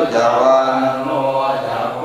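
Thai Buddhist chanting of Pali verses: a continuous sung recitation on held, gliding tones.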